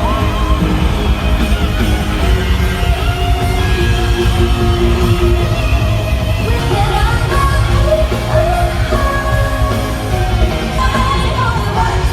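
Live K-pop concert filmed from the audience in an arena: loud pop music with heavy bass and a singing voice, with fans yelling.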